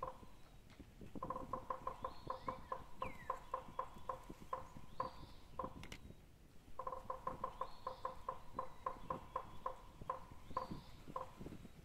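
An animal calling in fast trains of short repeated notes, about six a second, in two runs of several seconds each, with a pause between. Under them is faint sloshing of a hand working in shallow water.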